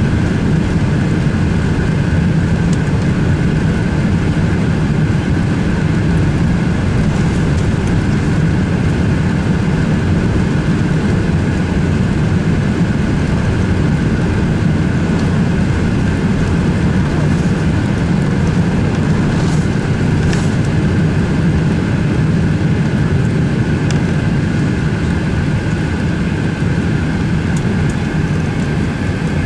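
Steady engine and airflow noise of a Qantas Airbus A380 during take-off, with its Rolls-Royce Trent 900 engines under power, heard as a deep, even rumble with a faint high tone above it.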